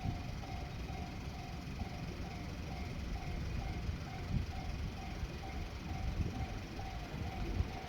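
Japanese railway level-crossing warning bell ringing: an electronic ding repeating evenly about twice a second, the signal that a train is approaching. A low rumble runs underneath.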